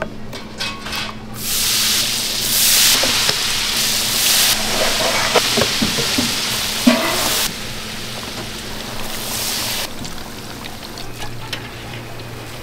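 Battered pieces deep-frying in a pot of hot oil, giving a loud, even sizzle that eases down about halfway through and again near the end. A few sharp clicks of metal tongs against the steel batter bowl sound in the middle.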